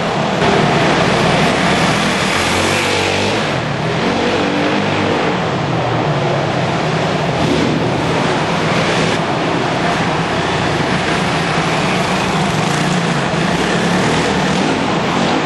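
Off-road motorcycle engine running under load, its pitch climbing a few seconds in, over a steady rushing noise.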